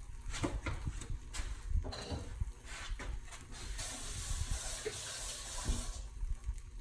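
Spiced whole fish sizzling on a hot baking tray fresh from the broiler, with scattered clicks and knocks of handling. The hiss swells for about two seconds in the second half.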